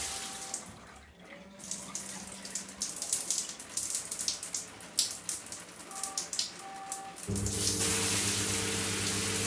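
Aqualisa Quartz shower being switched by its diverter valve to the handset. Its steady hum cuts out at the start and water spatters and drips for several seconds, with a few short beeps. About seven seconds in the hum returns with the steady hiss of spray from the handset.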